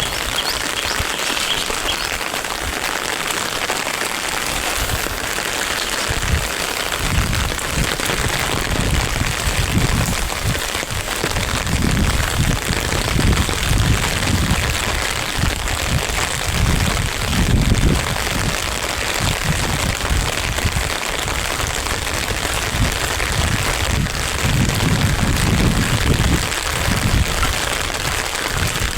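Steady rain falling, with low rumbles coming and going underneath.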